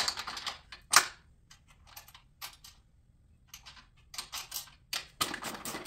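Metal clicks and taps as the table saw stand's steel tube handlebar and bolt hardware are handled and fitted into the stand bracket, in scattered single clicks and small clusters, with a quicker run of clicks near the end.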